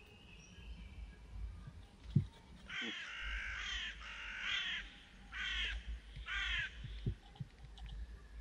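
A crow cawing about five times in a row. A cleaver thuds through the raw chicken into the wooden chopping board about two seconds in, with a lighter knock near the end.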